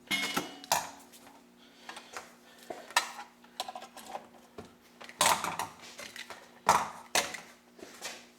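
Irregular clicks, knocks and clatter of small metal tools and parts being handled and set down on a work surface, with a brief ringing clink near the start.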